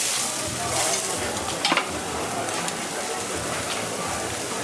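Raw beef burger patties sizzling on a hot flat-top griddle, a steady frying hiss, with one sharp clack about a second and a half in.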